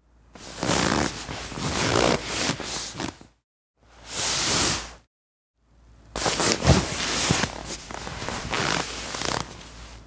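Faux leather sofa creaking and rustling under someone sitting and shifting on it, in three separate takes: a longer one, a short hissy one about four seconds in, and another long one from about six seconds with two sharp creaks close together near the start.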